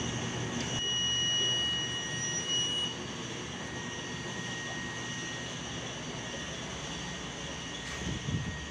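Steady whooshing fan noise of a commercial convection oven running, with a thin, steady high tone lasting about two seconds, starting about a second in.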